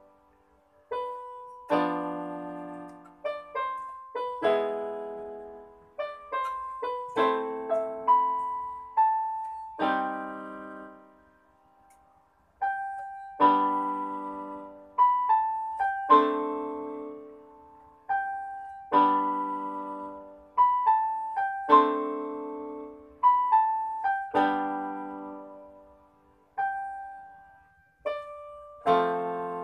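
Solo piano music: slow chords and single melody notes, each struck and left to ring out, with a brief pause about eleven seconds in.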